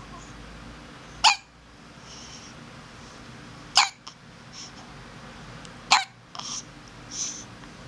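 A baby hiccuping: three sharp hiccups about two and a half seconds apart.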